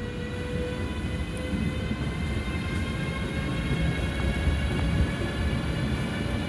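A DB Class 193 Siemens Vectron electric locomotive running light past at close range. Its wheels rumble on the rails under a steady electric whine that rises gently in pitch.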